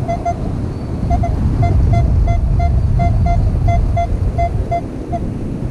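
Short, identical beeps of a metal detector's target tone, mostly in pairs about a third of a second apart and repeating roughly every two-thirds of a second, as the coil is swept back and forth over a buried target that reads a solid 24. Heavy wind rumble on the microphone runs underneath.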